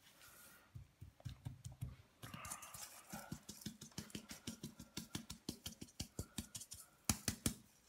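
Hands massaging raw, oiled, herb-seasoned pork: quick wet pats and squelches of palm and fingers on the meat, repeating several times a second, with two louder slaps near the end.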